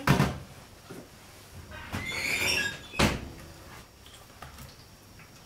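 Stainless steel roasting pan set down on a stainless steel counter with a sharp knock. About two seconds in it scrapes along the steel with a brief squeal, and a second metal knock follows about a second later.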